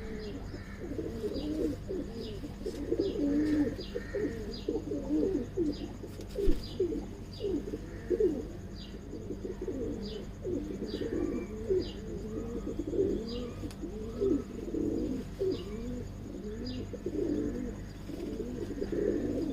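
Domestic pigeons cooing continuously in overlapping low, wavering calls, with short high chirps repeating about once a second.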